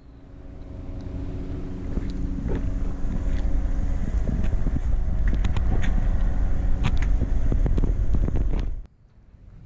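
Wind buffeting the camera microphone, with a steady small-engine hum underneath and scattered sharp clicks; it all cuts off suddenly near the end.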